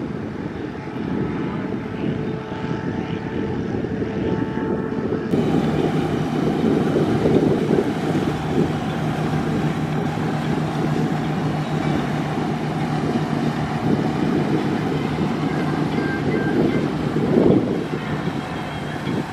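Boat engine running steadily with a low hum, mixed with wind buffeting the microphone. The hum becomes clearer about five seconds in.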